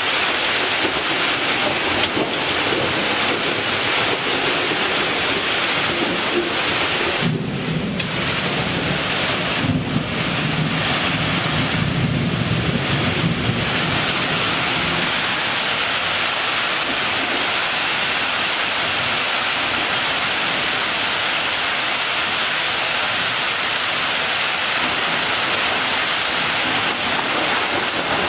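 Steady rain falling throughout, with a long low rumble of thunder that starts about seven seconds in and lasts some eight seconds before fading.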